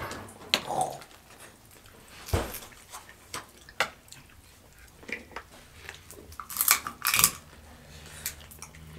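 Eating sounds: snow crab legs cracked and snapped apart by hand, with chewing. Irregular sharp cracks and clicks throughout, loudest in a quick cluster about seven seconds in.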